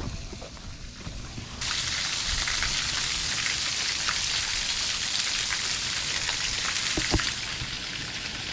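A steady rain-like hiss starts abruptly about one and a half seconds in, with a few faint clicks through it, and eases slightly near the end.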